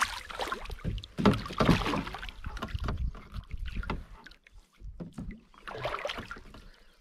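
A hooked bass thrashing and splashing at the water's surface right beside a canoe, loudest in the first two seconds, then more water splashing about six seconds in as a hand reaches into the water to grab the fish.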